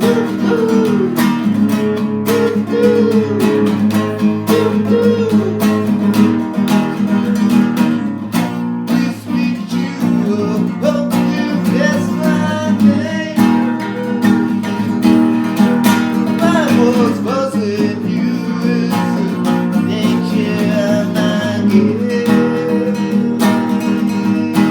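Acoustic guitar music, strummed steadily, with a gliding melody line over the chords.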